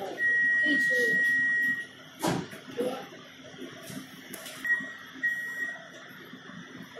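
A train's electronic door warning beeps as the train stands at the platform: one steady high beep about a second and a half long, a knock about two seconds in, then two short beeps.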